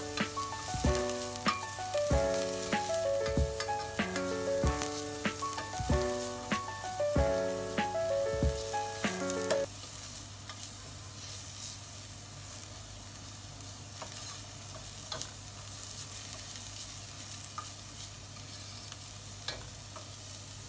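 Finely chopped onions sizzling in hot oil in a pot while being stirred, with a few light scrapes of a spatula against the pot; they are being sautéed until browned. Background music with a steady beat plays over the first half and stops about ten seconds in.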